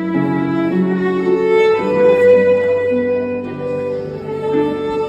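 Violin and harp playing together: a slow tune of long, held violin notes over a plucked harp.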